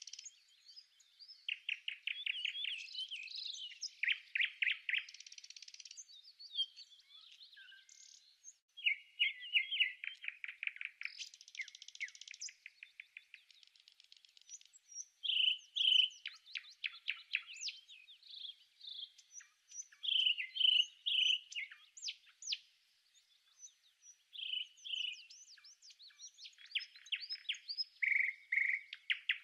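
Songbirds singing and calling: runs of fast trills and short chirps, one phrase after another with brief pauses.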